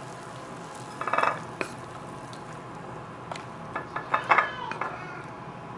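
A wooden utensil scraping pork and eggs out of a nonstick pan onto a ceramic plate, with knocks and short ringing scrapes of the pan and utensil against the plate. They come in two bursts, about a second in and again around four seconds in.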